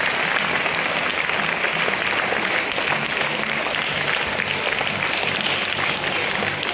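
Audience applauding steadily, a dense patter of hand claps.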